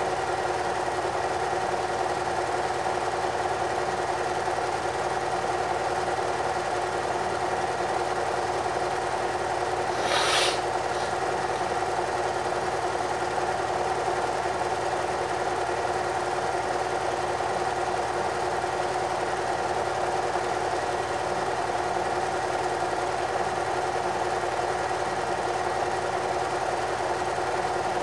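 Film projector running steadily: a constant mechanical hum and whirr with no change in pace, and a short burst of noise about ten seconds in.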